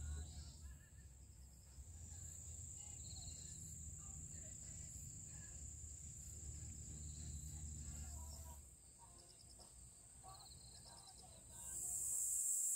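Evening insects, crickets among them, chirring in a steady high thin drone with short pulsed trills now and then. Under it is a low rumble that drops away about two-thirds through. Near the end a louder steady hiss comes in.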